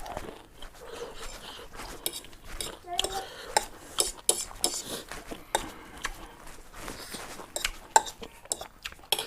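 Eating utensils clicking and scraping against a bowl of ramen noodles, in many short, irregular knocks.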